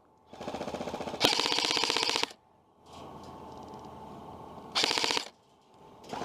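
Airsoft electric rifle firing on full auto in bursts, a fast even rattle of shots. A long burst grows louder about a second in and stops after about two seconds, a quieter rattle of fire follows, and a short loud burst comes near the end.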